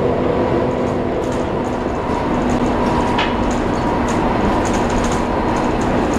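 Plaxton President double-decker bus under way, heard from the upper deck: a steady whine from its engine cooling fan over engine and road rumble, with light rattles and clicks from the body fittings.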